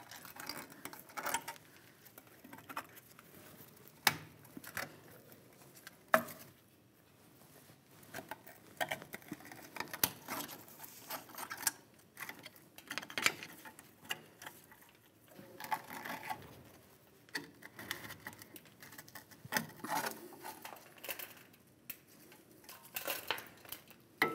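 Pliers and gloved hands working the rusted parking brake shoe hold-down springs and clips off the backing plate: irregular metallic clicks, clinks and scrapes, with a few sharper clicks in the first several seconds.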